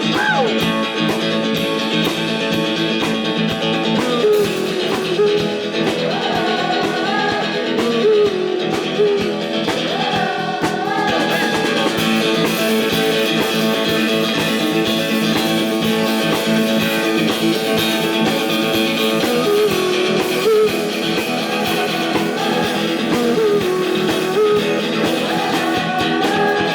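A rock band playing live with electric guitars to the fore and a wavering, bending lead melody over a steady beat.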